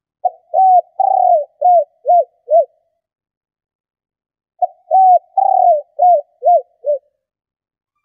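Female spotted dove cooing: two phrases of about six short, low coos each, one near the start and one about halfway through, with the third coo of each phrase longer and drawn out.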